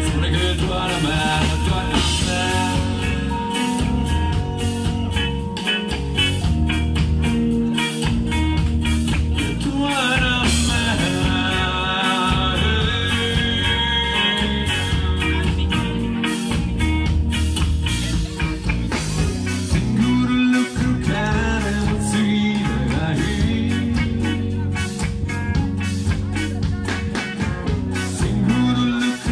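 Rock band playing live: electric guitars and a drum kit with a steady, driving beat.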